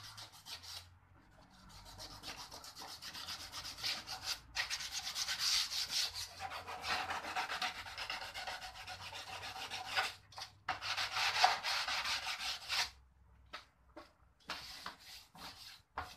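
Hand sanding of a cracked plastic car bumper: quick back-and-forth scratching strokes that run on for about eleven seconds, stop, then return as a few scattered strokes near the end. The surface is being scuffed so that the body filler will stick.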